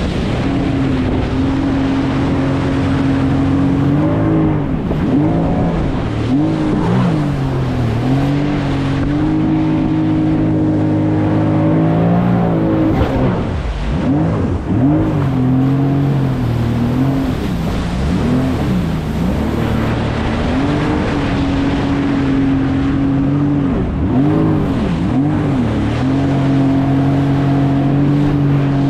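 Jet ski engine running at speed over a steady rush of water and wind. Its pitch holds level for long stretches and swings up and down several times, dipping briefly about fourteen seconds in.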